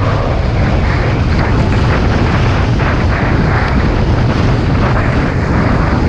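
Strong wind buffeting the microphone, mixed with water rushing past the hull as a small sailing boat runs at full speed in very strong wind. A loud, steady noise that is heaviest in the low rumble.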